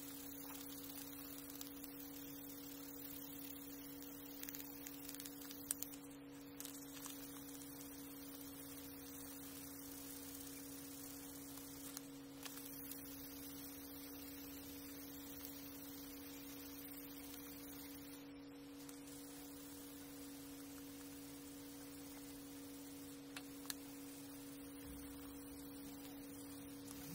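A steady two-tone electrical hum, with faint scratching of sandpaper rubbed by hand over a red oak shift knob and a few light clicks.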